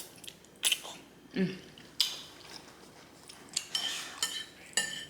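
Eating sounds: a metal utensil clinking against a bowl several times, with short mouth noises of chewing between the clinks. The clinks near the end ring briefly.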